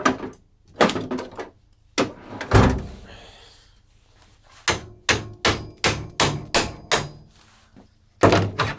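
Repeated sharp knocks and thuds on the equipment's chassis as a stuck module is worked loose: a few scattered blows at first, then a steady run of about eight strikes a little under half a second apart, then a final cluster.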